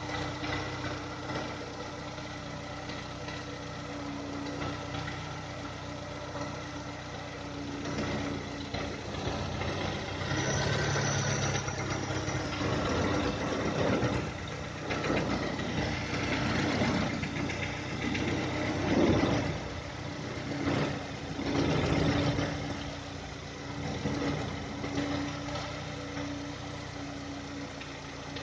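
VW 1.6 BSE petrol engine idling cold with a knock from inside the engine, which comes in when the idle revs drop below 1000 and lasts until the engine warms up. Louder uneven noises come and go over the middle of the stretch.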